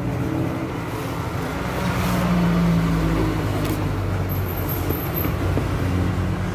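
Steady low rumble of road traffic, with a vehicle's engine hum growing stronger about two seconds in.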